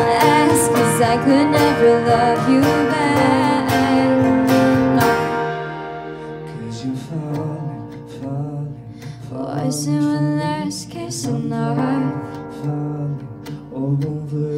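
Live acoustic band: acoustic guitar, drums and stage keyboard backing a woman singing. About five seconds in, the drums and fuller playing drop away, leaving a quieter passage of sung lines over guitar and keys.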